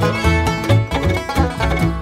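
Background bluegrass-style music: plucked banjo over a steady, pulsing bass beat.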